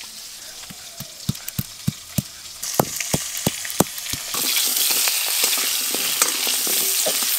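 Stone pestle knocking on a stone grinding slab as it crushes ginger and garlic: a series of sharp knocks, about three a second. About four seconds in, crab pieces begin sizzling steadily in hot mustard oil in a wok.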